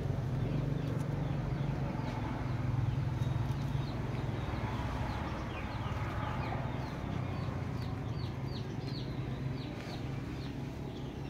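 Young chicken peeping: a run of short, high, falling peeps, a few a second, from about four seconds in until near the end, over a steady low hum.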